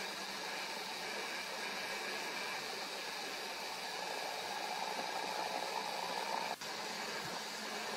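Steady hiss of outdoor ambient noise, with a momentary dropout about six and a half seconds in.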